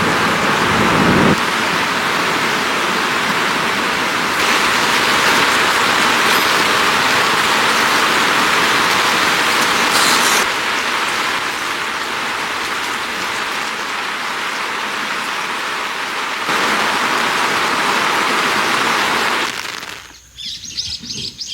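Loud, steady rain pouring, its level stepping up and down a few times. Near the end the rain cuts off and birds chirp in quick repeated calls.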